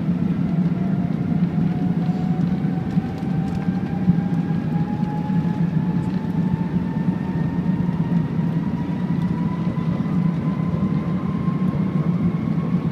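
Airbus A380 cabin noise heard from a window seat over the wing while the airliner rolls on the ground: a steady low rumble with a thin engine whine that climbs slowly and evenly in pitch.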